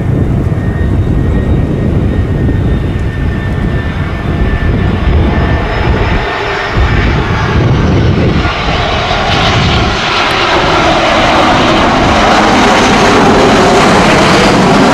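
Airbus A320 jetliner landing: the engines run at low power with a thin whine over a low rumble on approach. About eight and a half seconds in, a loud rushing jet roar builds as the aircraft touches down and rolls out on the runway.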